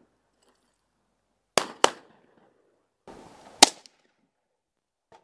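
Three gunshots from long guns: two close together, about a quarter second apart, about one and a half seconds in, then a single louder shot about two seconds later.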